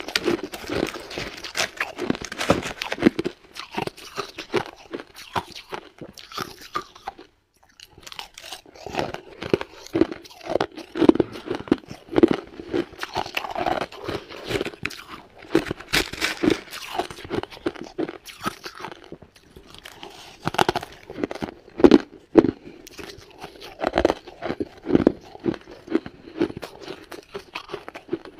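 Shaved ice and ice chunks crunching as they are bitten and chewed, in dense irregular crunches with a short pause about seven seconds in.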